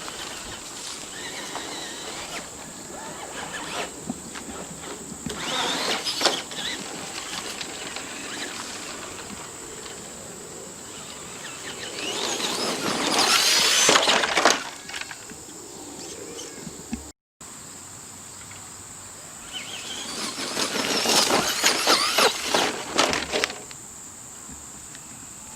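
Traxxas Bigfoot electric RC monster truck driving over dirt at a construction site, its electric motor whining up and down in three runs of throttle, with the crunch and crackle of its tyres on dirt and gravel.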